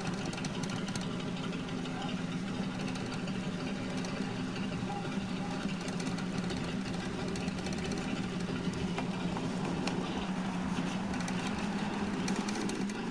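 Hand scrubbing of a polishing cloth, backed by a pencil and loaded with thick chrome-polish paste, rubbed back and forth on a chrome exhaust pipe, over a steady low hum from a motor running nearby.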